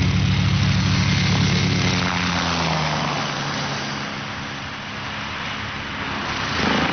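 Helicopter passing low: the rotor thuds in a fast steady pulse, then the pitch drops about two seconds in and the sound fades as it climbs away. A rush of noise swells up again near the end.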